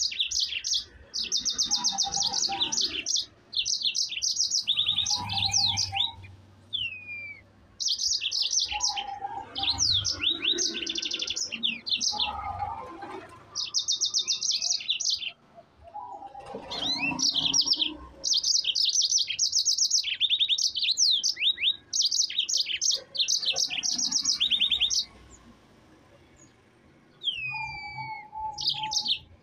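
Yellow-fronted canary singing in long runs of fast, high trills and chirps, the phrases broken by short pauses and a few downward-sliding notes. Near the end the song stops for about two seconds, then resumes with sliding notes.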